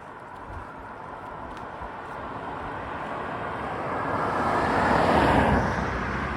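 A vehicle passing: a steady rush that grows louder, peaks about five seconds in, then eases slightly.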